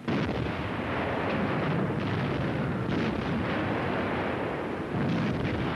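Naval gunfire and shell bursts, a dense, continuous din of battle that starts suddenly, dips briefly and surges again about five seconds in.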